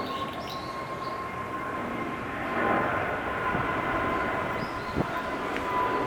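A few short, high calls of a brown-eared bulbul over a steady mechanical noise with a constant whine, which swells about two and a half seconds in. A sharp click about five seconds in.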